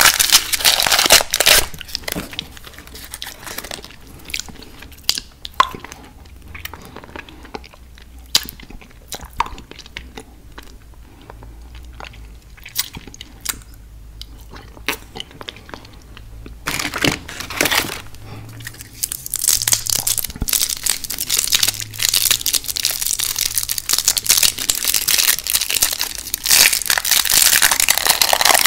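Close-miked candy eating: wrapper crinkling and crunchy chewing of candy, dense at the start, thinning to scattered small clicks in the middle, then a loud burst and steady crinkling and crunching through the second half.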